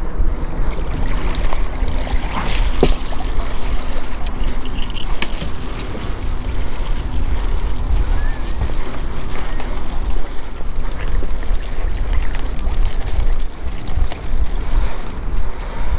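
Steady low wind rumble on the microphone, with a few sharp knocks and rope scrapes as a crab ring is hauled up hand over hand and set down on the dock.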